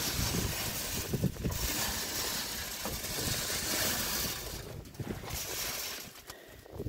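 Grain feed poured from a bucket into a metal feed trough, a rushing hiss that stops briefly near the middle and picks up again, with wind buffeting the microphone underneath.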